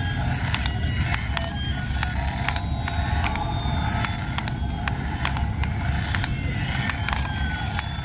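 Toy remote-control Aerobus airliner driving on its wheels, its built-in speaker playing electronic sound effects: slow rising and falling tones over a steady low rumble, with many sharp clicks.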